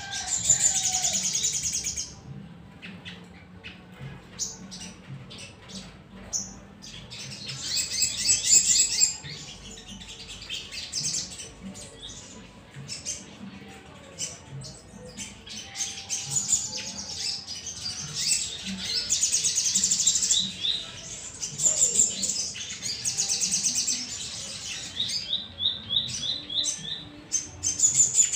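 Little spiderhunters (sogok ontong) singing: bursts of fast, high trilling notes, several phrases in turn, with a run of evenly spaced short chips near the end.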